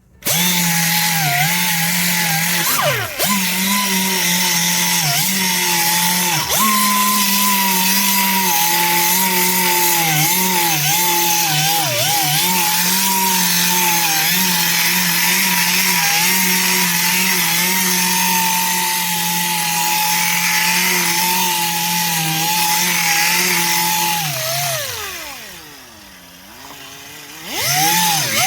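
Power sander running with wet 600-grit sandpaper against an aluminium wheel's curb rash, its motor pitch wavering as it is pressed on. Near the end it winds down and stops for a moment, then starts up again.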